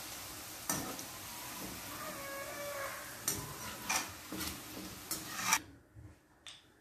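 Potato fries sizzling in hot oil in a steel kadai while a wire spider strainer and a slotted spoon scoop them out after their first frying, the metal clinking and scraping against the pan several times. The sizzling drops away suddenly near the end as the last fries are lifted clear of the oil.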